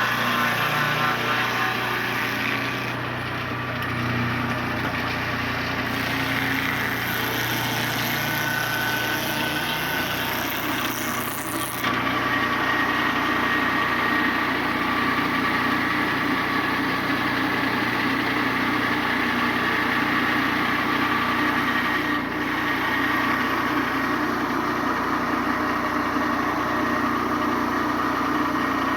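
Turbosawmill M8 circular sawmill running under engine power, a steady motor sound. About twelve seconds in the sound changes abruptly and a steady whine sets in.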